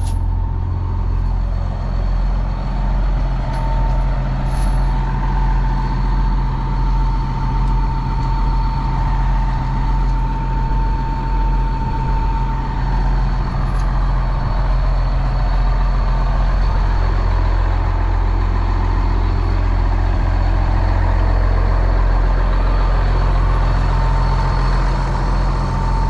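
Komatsu D61EX bulldozer's diesel engine running steadily, a low rumble with a thin steady whine above it.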